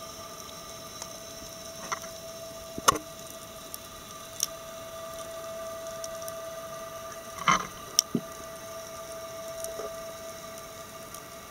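Underwater ambience at a reef: a steady even hum with scattered sharp clicks and knocks. The loudest click falls about a quarter of the way in, and a close group of knocks comes about two thirds of the way through.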